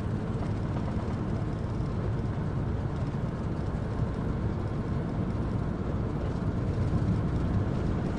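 Steady rumble of road and wind noise from a van driving at highway speed, heaviest in the low end and unchanging throughout.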